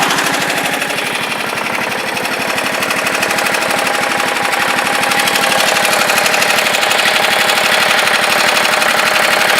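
Single-cylinder Briggs & Stratton Intek engine of a John Deere LA125 lawn tractor running steadily under way, a fast even firing chatter that gets a little louder about halfway through. The engine is running properly again now that its sheared flywheel key has been dealt with.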